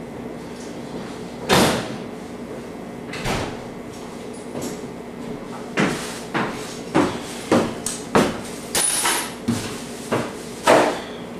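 A series of sharp knocks and bumps: two single ones early, then a run of about nine at roughly two a second in the second half.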